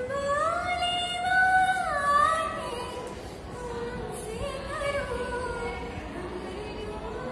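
A young woman singing unaccompanied, holding long notes that glide up and down; the loudest held notes come in the first two seconds, then the melody goes on more softly.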